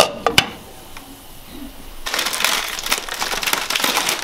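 A glass pot lid clinks twice as it is set on a metal pot. About two seconds in, plastic instant-noodle packets begin crinkling and crackling steadily as they are handled and opened.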